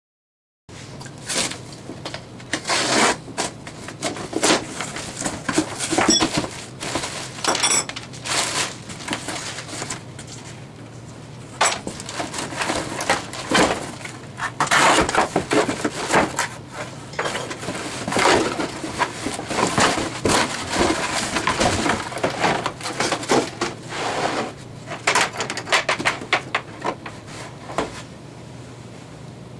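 Unboxing noises: cardboard box flaps, plastic air-pillow packing and a hard plastic tool case being handled, giving irregular rustling, crinkling and light knocks.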